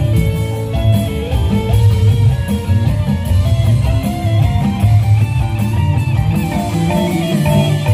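Live band playing an instrumental passage through a large PA sound system: an electric guitar carries the melody over bass, drums and hand drum with a steady beat.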